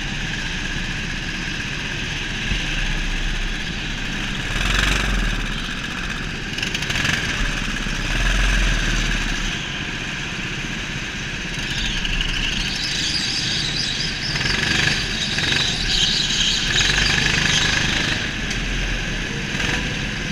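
Go-kart engines running during a race, the engine note rising and falling with the throttle.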